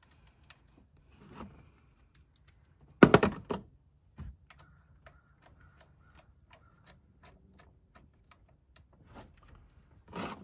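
Ratchet wrench clicking in short runs as the hold-down bolt of a new intake cam position sensor is run in and snugged, with a louder metallic clatter about three seconds in.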